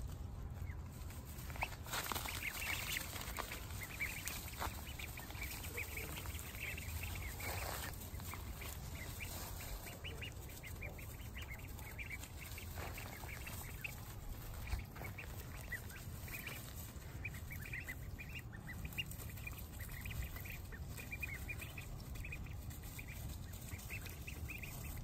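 A flock of young Pekin, golden and Blue Swedish ducklings peeping: short high calls in quick succession, bunched most densely about two seconds in and again in the second half.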